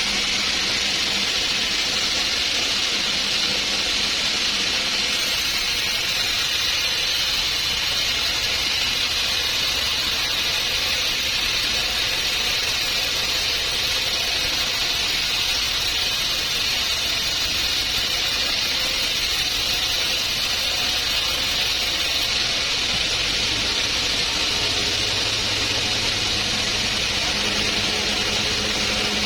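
Sawmill saw cutting through a trembesi (rain tree) log: a steady, loud, high-pitched hissing rip with machine hum underneath.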